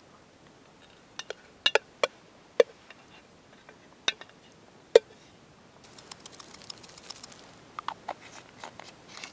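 A spoon knocking and scraping against a small metal cooking pot as corn is tipped out, giving a string of sharp clinks. From about two-thirds of the way through, soft crackling and rustling follow.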